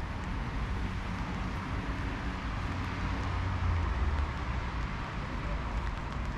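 City street ambience: a steady hiss of traffic with a vehicle's low rumble swelling about three and a half seconds in, as it passes.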